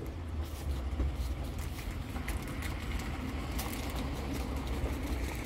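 Steady low rumble, with faint scattered clicks and rustles from small valve-kit parts being handled.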